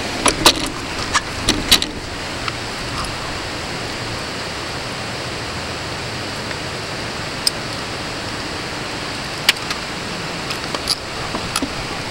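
Mountain bike rolling along, a steady rush of wind and tyre noise, with scattered sharp metallic clicks and rattles: several in the first two seconds, then a few single ones later.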